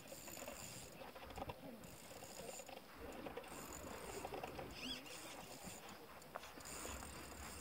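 Faint outdoor background hiss with a brief high bird chirp about five seconds in.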